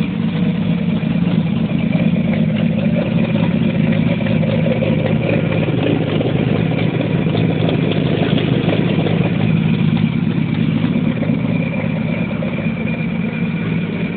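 Chevrolet Caravan's straight-six engine running and rumbling steadily, its strongest sound a low hum.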